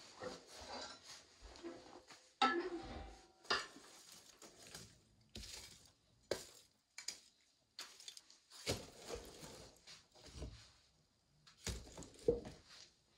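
Split firewood being loaded into an open woodstove over glowing coals: a series of irregular wooden knocks and metallic clunks as the logs go into the firebox.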